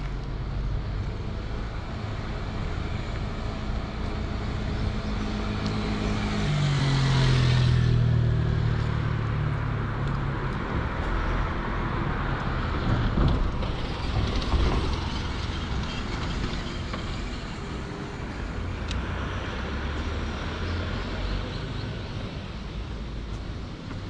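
Road traffic: a motor vehicle passes close by about seven seconds in, its engine note dropping in pitch as it goes, over a steady drone of engines.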